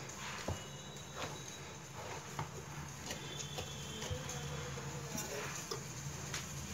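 Hands kneading wheat-flour dough in a steel bowl: soft, irregular pats and squishes, with a few light clicks.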